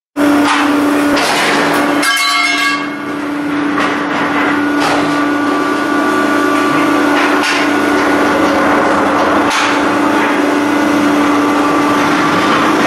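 MgO board production line machinery running: a steady hum with irregular knocks and clanks, some ten over the stretch, as boards and machine parts strike one another.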